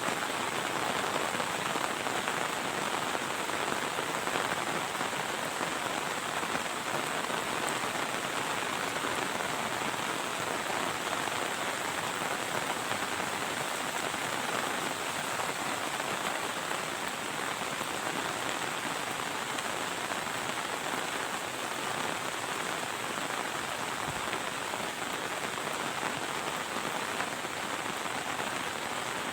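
Heavy rain falling steadily, a dense even hiss of drops on surfaces with no thunder.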